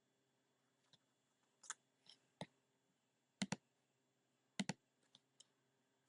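Faint, sparse clicks of a computer mouse and keyboard, a few single clicks and two quick double clicks.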